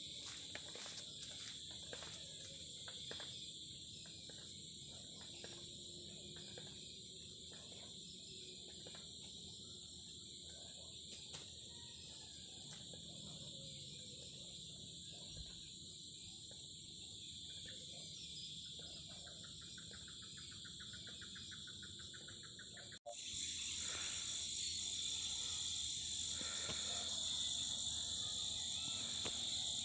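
Steady chorus of crickets and other insects, with a high-pitched call repeating in short pulses roughly every second and a half. About 23 seconds in it cuts off abruptly and resumes as a louder insect chorus.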